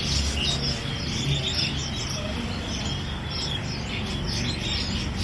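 Many caged songbirds chirping and calling at once, a dense stream of short overlapping high notes, over a steady low background hum.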